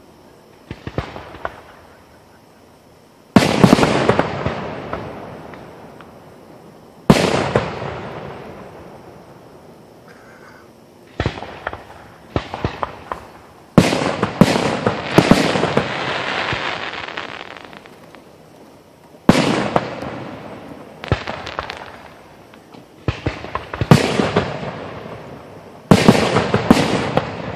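Aerial fireworks shells bursting overhead one after another, about a dozen in all. Each is a sudden loud bang with a long rolling echo that fades over a few seconds, and some are followed by a quick cluster of sharper pops.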